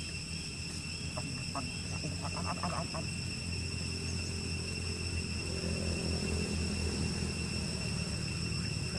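Steady chorus of insects droning in high, unbroken tones over a low rumble, with a few short high squeaks from about one to three seconds in.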